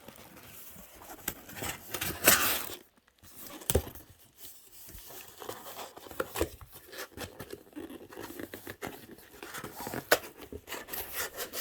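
Packaging being closed up by hand: paper and wrapping rustling and crinkling, with a few sharper taps and knocks, the loudest about two seconds in.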